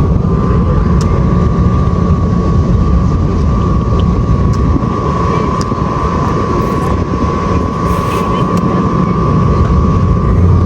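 Steady, loud rumble with a constant mid-pitched hum running under it: wind and machinery noise aboard a cruise ship at sea.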